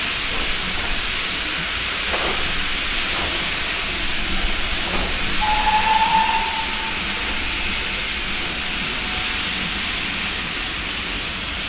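Steady hiss of steam from a steam locomotive as its train of coaches rolls slowly past. Just past the middle a brief high tone sounds for about a second.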